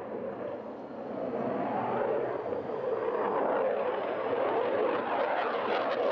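Jet engine noise of a Saab JAS 39 Gripen fighter flying a display pass, dipping briefly about a second in and then building again, with a faint rising whine above it.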